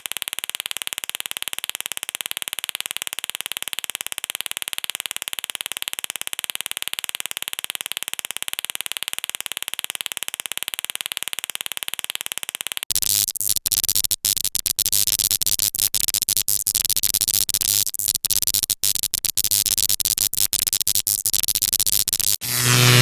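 Synthesized sci-fi laser and stun gun sound effects: a steady electric buzz for about thirteen seconds, then a different stuttering, pulsing electronic effect with brief dropouts. Near the end a new effect starts with a strong low hum.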